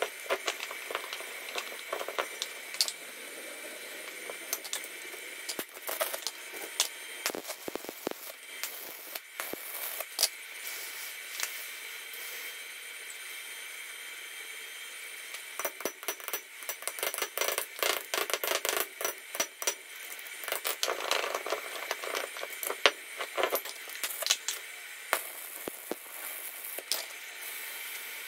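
Steel parts of a buggy's chain-drive spool clinking and rattling as they are handled and set down on a concrete floor, in irregular clusters of sharp clicks, with a sparser stretch around the middle.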